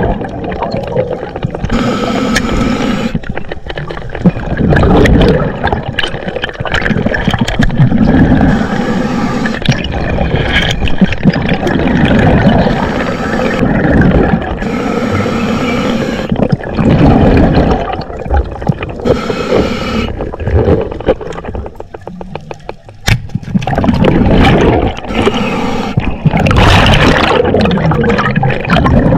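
Underwater water noise picked up by a diver's camera: a constant low rush of moving water, with bursts of hissing, bubbling sound every few seconds.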